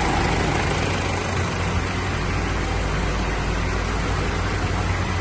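Mitsubishi L200 Triton 3.2 four-cylinder turbodiesel running with a steady, even low hum; its timing chain has just been replaced.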